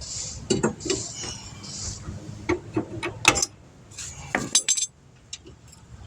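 Metal brake parts and hand tools clinking and knocking together during a brake job, a string of sharp clanks with the loudest a little over three seconds in, quieter near the end.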